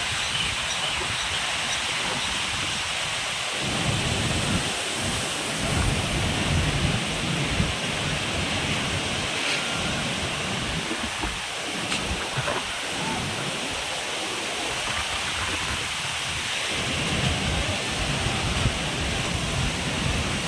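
Heavy rain falling steadily, with low rumbling swells coming and going every few seconds.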